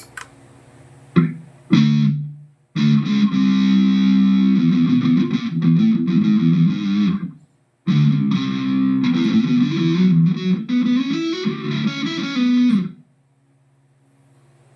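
Electric guitar played through a Mooer GE150 Pro Li multi-effects processor: two short chord stabs, then two longer phrases of notes separated by a brief pause, ending about 13 seconds in.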